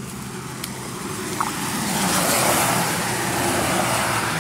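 A car passing on a rain-soaked street: tyre hiss on the wet road swells to a peak about halfway and fades, over a steady low engine hum.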